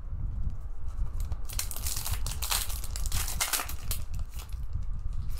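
Foil wrapper of a 2020 Prizm blaster trading card pack crinkling as it is torn open by hand, a dense burst of crinkle from about a second and a half in until nearly four seconds in.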